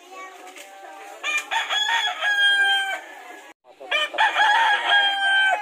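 A rooster crowing twice, loud, each crow a long call ending in a held, slightly falling note.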